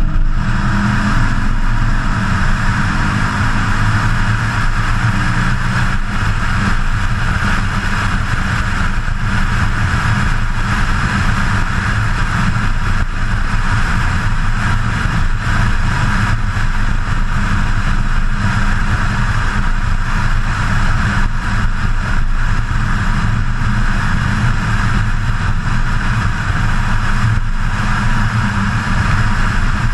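BMW E92 M3's V8 engine running steadily while cruising at road speed, with a constant rush of road and wind noise, heard from a hood-mounted camera.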